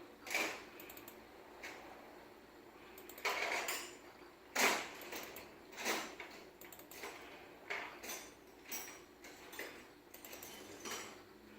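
Irregular light clicks and clattering knocks, about a dozen spread out with pauses between them, a few with a brief rattle; the sound of objects being handled.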